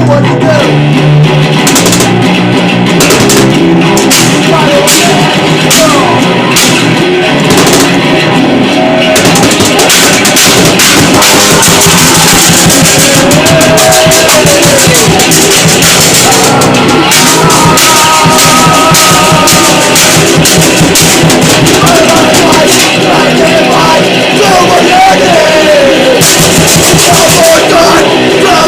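Loud, dense lo-fi garage noise-rock: distorted guitar and drum kit playing without a break, with cymbal hits in the first part and sliding, bending pitched lines over the wall of noise later on.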